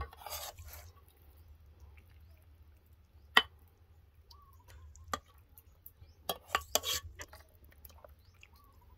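Metal ladle clinking and scraping against an aluminium pot and a serving bowl as curry is ladled out: scattered clinks, the sharpest about three seconds in, and a short run of scrapes and clinks a little after six seconds.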